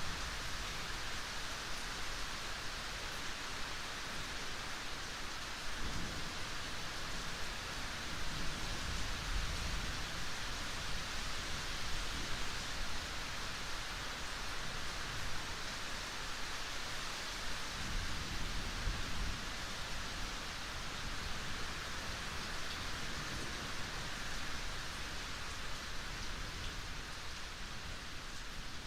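Steady rain, an even hiss with no let-up, with two low swells of thunder rumbling underneath: one from about six to ten seconds in, and another a little past the middle.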